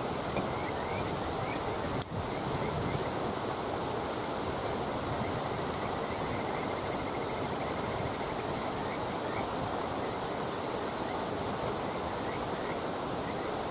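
Campfire burning beside a steady rush of running water, with one sharp pop from the fire about two seconds in. Faint short chirping frog calls repeat throughout.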